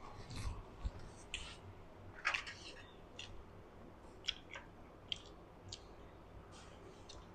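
Close-miked eating sounds: chewing and mouth smacks, with about a dozen short, sharp clicks as chopsticks pick food from a soup bowl.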